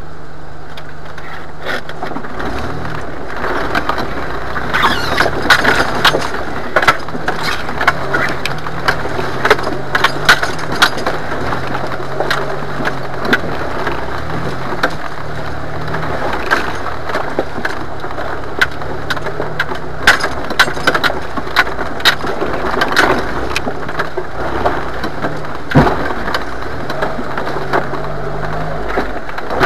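Jeep Wrangler engine running at low speed, its pitch rising and falling with the throttle, heard from inside the cab. Frequent sharp knocks, clunks and rattles come from the body, suspension and loose contents as the Jeep jolts over rocks.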